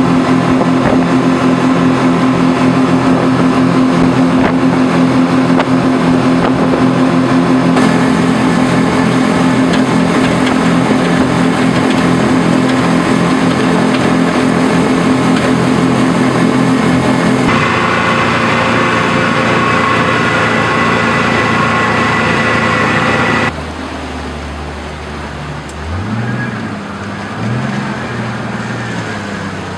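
Loud engines running steadily, in several cut segments that change abruptly. In the last few seconds the pitch rises and falls as an engine is revved.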